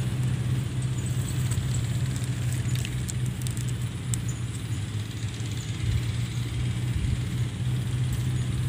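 A motor running steadily with a low, even hum, and a few faint clicks about three to four seconds in.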